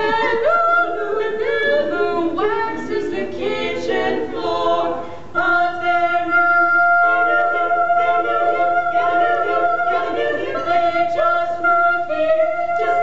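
Women's quartet singing a cappella: quick moving notes at first, then from about five seconds in a long held chord.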